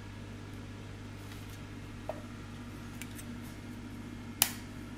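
A chocolate bar being snapped into pieces by hand: a couple of faint clicks, then one sharp snap near the end, over a steady low hum.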